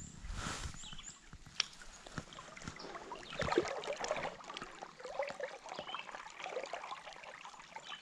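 Creek current trickling and flowing, with scattered small clicks and rustles and a brief hiss about half a second in.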